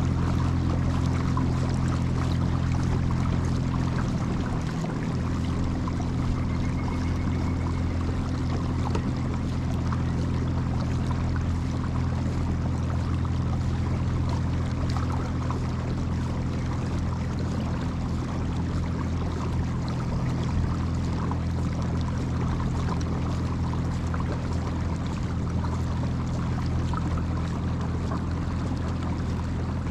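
Built-in Minn Kota electric motor of an Old Town Sportsman 106MK kayak running steadily under way, a low, even hum with water washing along the hull.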